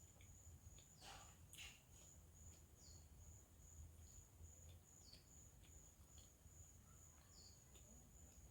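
Near silence: a faint steady high-pitched whine with a few soft clicks.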